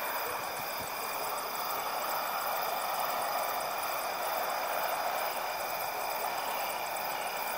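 Steady night-time outdoor ambience: an even wash of distant noise with no single event standing out, and faint, rapid high-pitched ticking above it.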